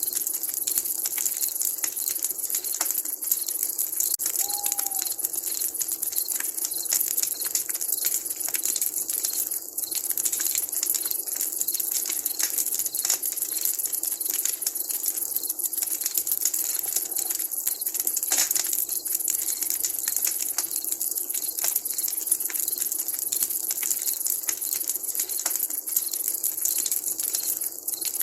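Wood campfire crackling, a dense, steady run of small pops and snaps over a hiss. About four seconds in, one short owl call sounds through the crackle.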